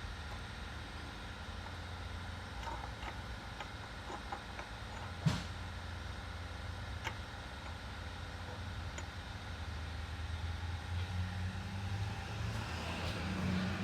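Light metallic clicks and taps of differential locker parts being handled and fitted, with one sharper click about five seconds in, over a steady low hum.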